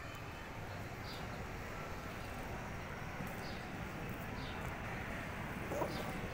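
Steady outdoor background noise, with faint short bird chirps a few times. Short lower calls begin near the end.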